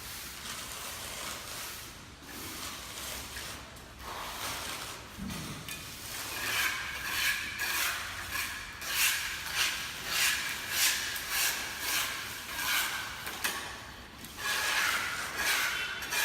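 Hand tools scraping and rubbing across wet concrete. From about six seconds in the strokes come in a quick rhythmic run of two to three a second, pause briefly near the end, then start again.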